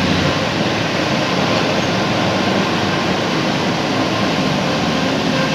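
Steady rumble and road noise of a moving vehicle, heard from inside.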